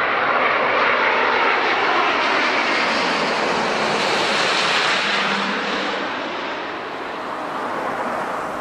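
Airbus A350-900 airliner's Rolls-Royce Trent XWB turbofan engines on final approach, passing low overhead: a loud, steady jet noise with a tone that falls in pitch as it goes by, fading away about six seconds in.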